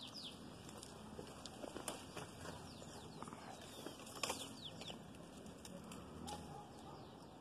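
Faint birds chirping in short, falling notes over a low, steady hum, with a couple of light clicks about two and four seconds in.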